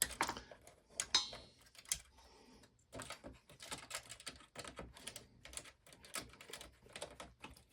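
Hand screwdriver backing a long Phillips screw out of a PlayStation console's plastic casing: a run of small, irregular clicks and ticks that come thicker from about three seconds in.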